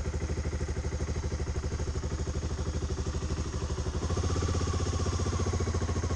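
Motorcycle engine running with an even, pulsing exhaust note; about four seconds in it gets louder and fuller.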